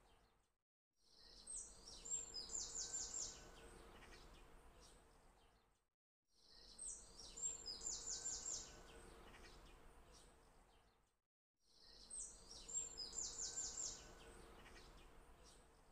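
A short bit of recorded birdsong looped as background audio. Each pass rises out of a brief silent gap, brings a quick run of high chirps, and fades away, repeating about every five seconds.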